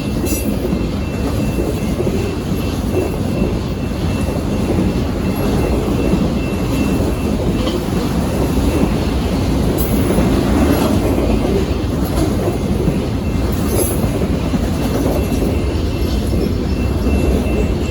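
Train rolling past, a steady loud rumble of railcar wheels on the rails with some clatter over the joints, and a faint high tone that comes and goes.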